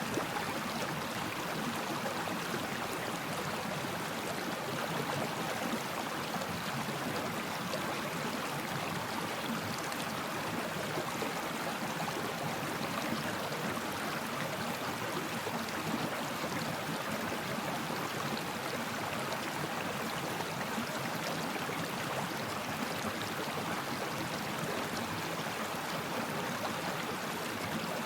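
A stream flowing steadily over rocks, an even babbling rush of water with no breaks.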